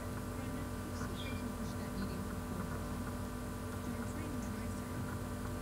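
Steady electrical hum, with faint muffled dialogue underneath.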